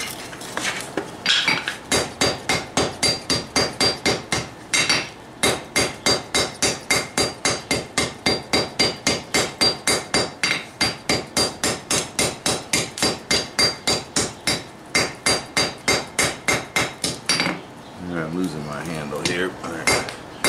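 Hammer striking hot steel on an anvil in a steady rhythm of about three blows a second, each with a short metallic ring, to round off a forge-welded bar. There are two brief pauses in the hammering, and it stops a few seconds before the end.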